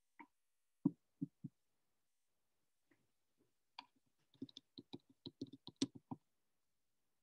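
Faint clicks and taps at a computer desk, picked up through a video-call microphone: a few soft knocks in the first second and a half, then a quick, irregular run of about a dozen clicks starting about four seconds in and lasting about two seconds.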